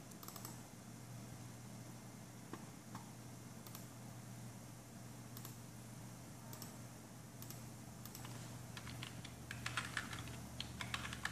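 Computer keyboard typing, faint: scattered single key or button clicks, then a quick run of keystrokes in the last few seconds as the login name is entered, over a low steady hum.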